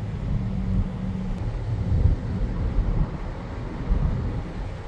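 Car driving slowly: a steady low rumble of road and engine noise heard from inside the car.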